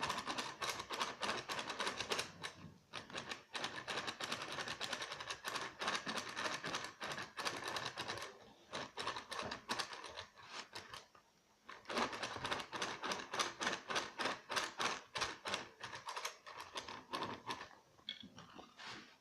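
A spoon stirring cake batter, clicking rapidly against the sides of its container, with a couple of short pauses.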